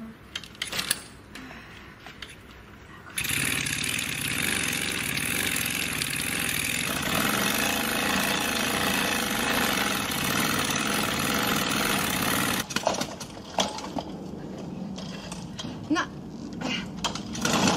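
KTM moped's small two-stroke engine being pedal-started. After a few light clicks it catches about three seconds in and runs steadily for about nine seconds, then cuts out suddenly, leaving scattered clicks.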